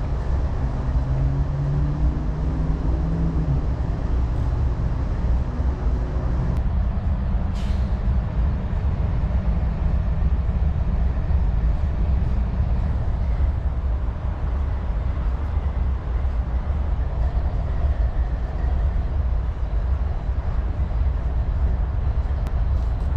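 Steady low rumble of nearby heavy vehicles, with an engine drone over it for the first six seconds or so.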